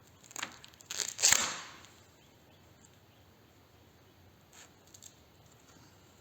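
Tape being peeled and torn by hand: a short rustle, then a louder tearing rip that lasts under a second and fades, then two faint rustles near the end.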